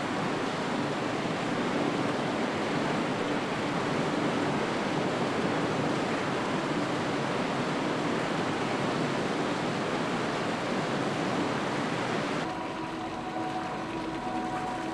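A steady, even rushing noise in the construction tunnel. About twelve seconds in it changes to a slightly quieter steady machine hum with several held tones, over water pouring from a pipe into a drainage channel.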